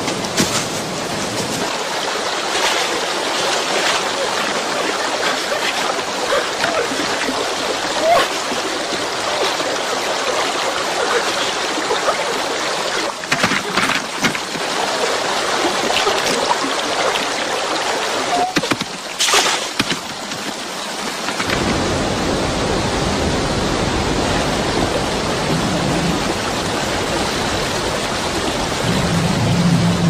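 Fast white-water river rushing steadily, with a couple of sharper splashes, one about eight seconds in and one around nineteen seconds. A deeper rumble of the current joins from about twenty-one seconds in.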